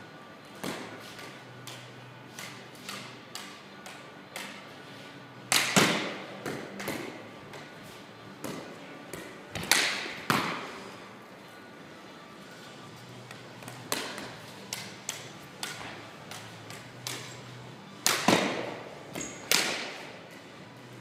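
Floorball stick and plastic ball impacts: sharp cracks of shots and the ball striking the hard floor and goal, each with a short hall echo. The loudest come about six, ten, fourteen and eighteen seconds in, among many lighter taps.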